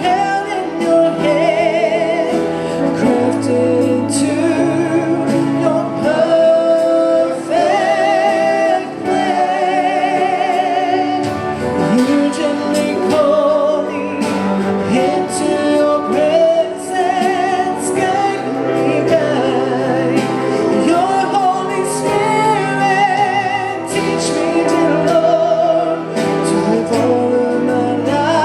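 Gospel worship song: singers with vibrato over a band with a steady beat.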